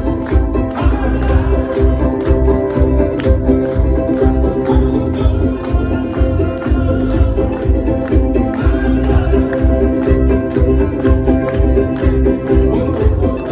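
Live music with a steady pulsing beat under sustained pitched notes.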